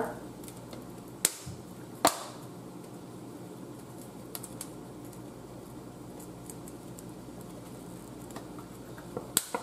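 Two sharp plastic clicks less than a second apart as the flip-top cap of a black pepper container is opened, then a steady low hum with a few faint ticks while the pepper is shaken out into a large stockpot.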